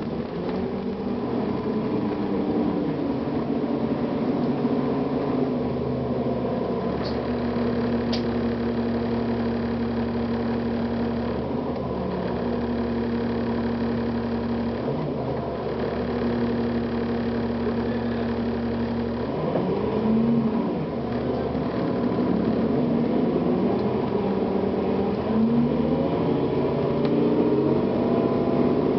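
Cummins ISL diesel engine and Allison automatic transmission of a 2009 Gillig Advantage transit bus running, heard on board. The engine holds a steady pitch for most of the time, then about two-thirds through its pitch rises and falls as the bus accelerates through the gears.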